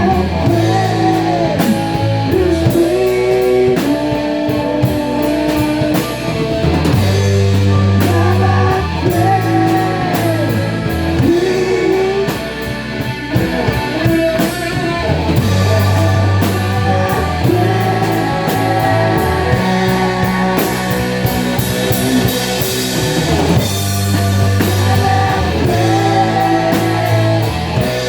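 A rock band playing a song live: electric guitar, bass and drum kit, with a gliding lead melody over them.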